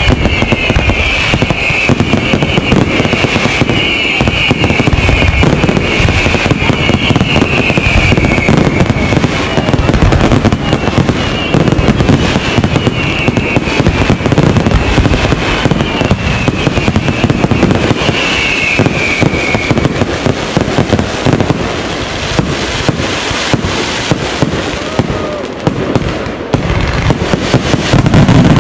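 Aerial fireworks display in a dense barrage: rapid, continuous bangs and crackles of shells bursting and firing, with a high shrill sound repeating through roughly the first two-thirds.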